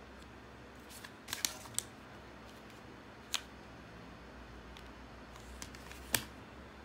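A few sharp crackles and taps as a plastic-wrapped granola bar is picked up, handled and set down on a table, the loudest tap near the end.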